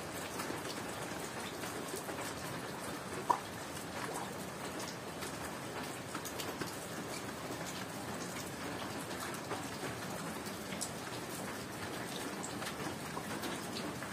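Steady rain falling, with scattered small ticks of drops and one sharp click about three seconds in.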